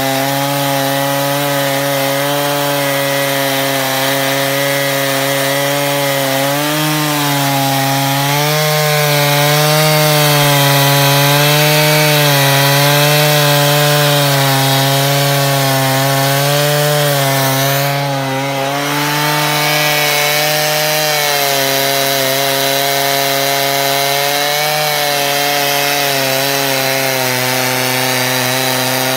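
Stihl MS881 two-stroke chainsaw running under load in a Logosol wide chainsaw mill, ripping a slab lengthwise through a log. The engine holds a steady pitch that wavers slightly as the cut goes, with a brief dip in level about two-thirds of the way through.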